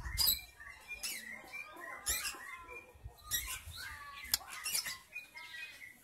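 White-rumped shama calling: a series of sharp, high chirps about once a second, with short squeaky warbling notes between them.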